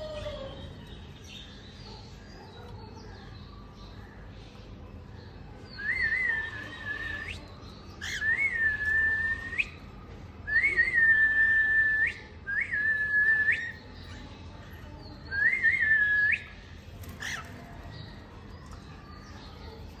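Cockatiel whistling: five clear whistled notes, each a second or so long, that open with a short warble and then hold one steady pitch.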